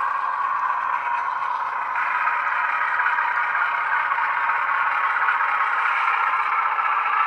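Model diesel locomotive's DCC sound decoder playing a steady ALCO diesel engine sound through small onboard speakers as the model runs. The sound has little bass and gets a little louder about two seconds in.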